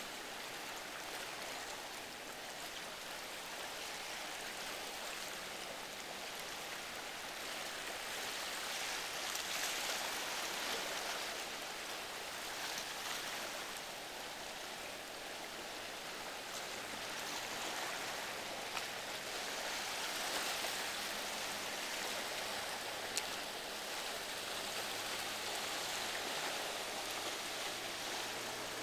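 Waves and rushing water at an ocean inlet: a steady wash that swells and eases every few seconds. In the second half a faint low hum of a boat's engine joins in.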